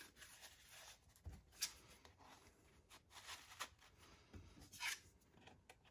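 Faint rustling and light scraping as an oil-finished tin cloth wallet is opened and handled and a card is slid into one of its slots, a few soft scuffs spread apart.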